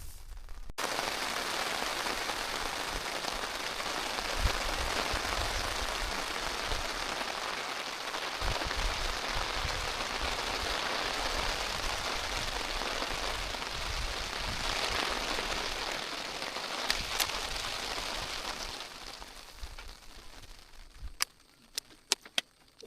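Steady rain, a dense even patter that starts abruptly just under a second in and thins out near the end to a few separate drips.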